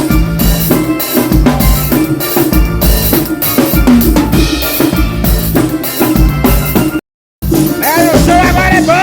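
Drum kit played in a steady groove, bass drum and snare, with sustained bass notes of backing music under it. The sound cuts out completely for a moment about seven seconds in, then music with a gliding melody comes back.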